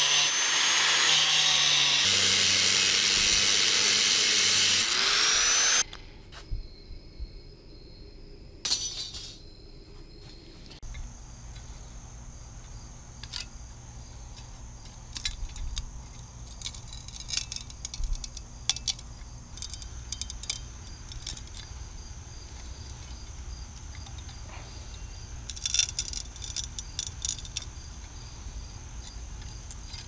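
Angle grinder cutting through a metal rod, a loud steady grinding that stops abruptly about six seconds in. After that come quieter scattered clicks and metallic knocks of pliers gripping and bending a thin metal rod.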